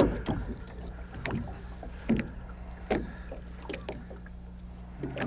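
Fishing boat on the water: a low steady motor hum, with short knocks and splashes about once a second.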